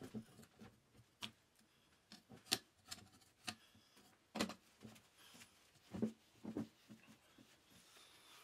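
Scraper and hands cleaning old grease and dirt off a garden tractor's metal front wheel spindle: faint, scattered sharp clicks and short scrapes of metal on metal, the loudest about two and a half and six seconds in.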